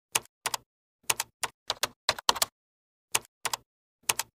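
Typing sound effect: sharp, irregular key clacks like a typewriter, some in quick pairs, with dead silence between them.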